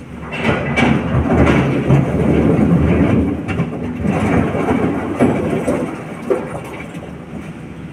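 SANY hydraulic excavator digging its bucket into a pile of blasted rock: the diesel engine working under load while the rocks scrape and clatter against the bucket, with scattered sharp knocks. The digging noise eases off in the last few seconds.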